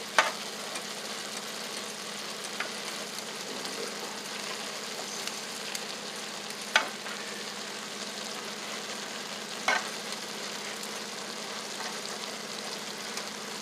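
Rice frying in a hot pan with a steady sizzle, broken by a few sharp knocks of a utensil against the pan.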